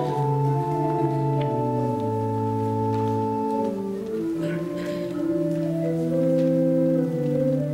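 Church organ playing slow, sustained chords with several notes held together, the offertory music during the offering.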